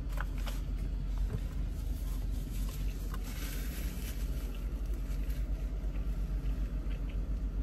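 Steady low rumble of a car idling, heard from inside the cabin, with a paper napkin rustling about three seconds in.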